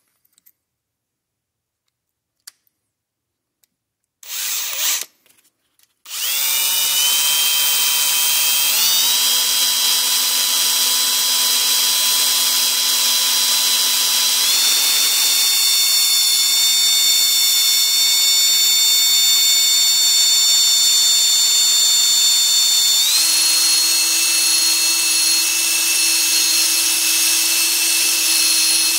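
High-speed handheld power tool running continuously on an AR-15 fire selector, its pitch stepping up three times as the speed is raised. Before it starts there are a few seconds of silence and a brief burst of sound.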